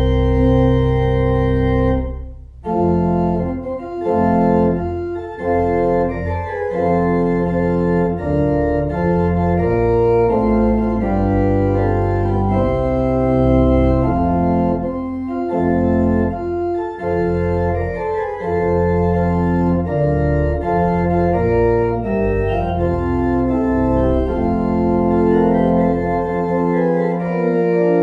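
Organ music: held chords moving from one to the next, with a brief break about two seconds in; the low bass notes drop out near the end.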